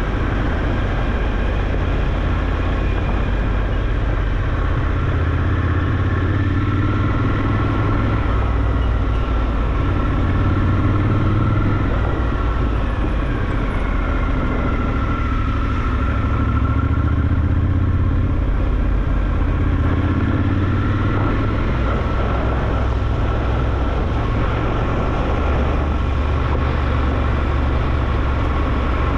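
Triumph Scrambler 1200 XE's parallel-twin engine running steadily on the move, its pitch drifting slowly up and down.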